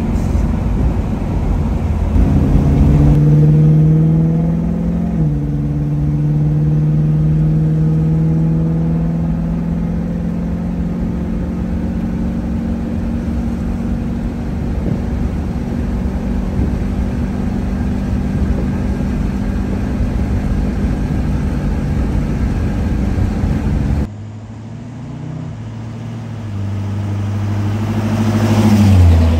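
A 1977 Pontiac Trans Am's 400 V8 on the road, heard from inside the cabin. The engine climbs in pitch under acceleration, drops suddenly as the automatic shifts up, then holds a steady cruise. Near the end, heard from outside, the car comes up and drives past, its engine rising to its loudest and then falling in pitch as it goes by.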